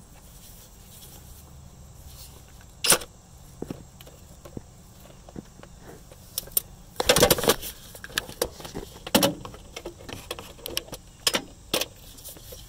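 Scattered metallic clicks and clinks from a socket wrench with an extension and a 14 mm socket working the alternator's top mounting bolt, with one short dense run of clicking about seven seconds in, as the bolt is being loosened.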